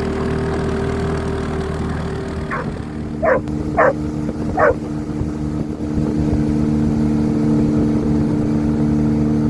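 A boat motor running steadily, its note changing about two and a half seconds in, while a dog barks four times in quick succession.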